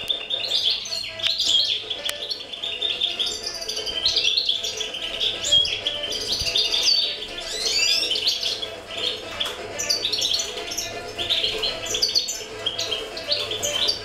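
Small aviary birds chirping and twittering, many short high calls and trills overlapping without a break, over a faint steady low hum.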